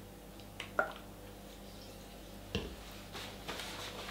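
Water squirted from a plastic squeeze bottle onto a whetstone, with a few short squelching clicks. About two and a half seconds in, a dull knock as something is set down on the countertop, then paper towel rustling.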